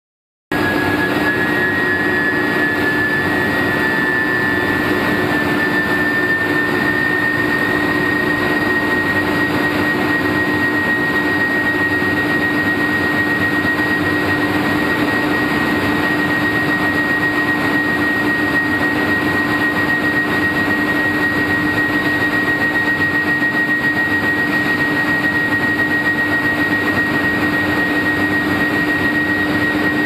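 Induction billet heating furnace line running: a loud, steady machine noise with a high-pitched whine that rises slightly over the first few seconds and then holds, over a lower steady hum. It starts abruptly about half a second in.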